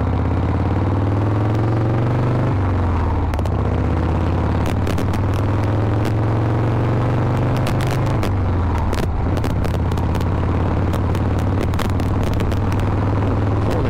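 Harley-Davidson Shovelhead V-twin engine pulling the motorcycle on the road. Its pitch climbs as it accelerates, drops at an upshift about two and a half seconds in, climbs again, and drops at a second upshift around eight seconds in before holding steadier.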